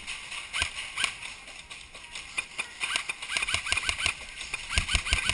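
Airsoft guns firing: a few single shots, then a rapid string of about six shots a second from about halfway through, each a sharp snap with a short rising chirp.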